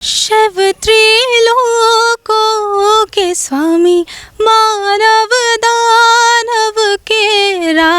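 A female voice singing solo and unaccompanied, long high notes with small ornamental turns, phrases separated by short breaths.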